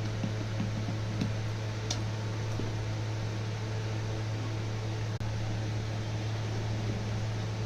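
Steady low hum with a hiss over it, briefly cutting out about five seconds in.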